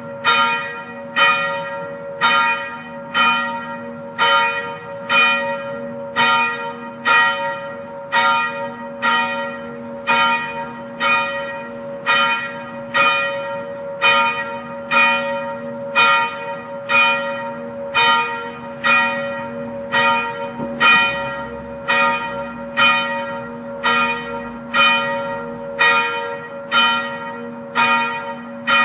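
Church bell ringing in a steady, even series of strokes, each ringing on into the next, over a constant low hum.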